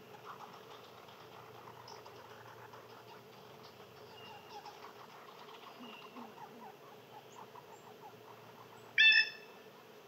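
Faint outdoor hush with scattered soft clicks and faint chirps, then about nine seconds in one short, loud pitched animal call.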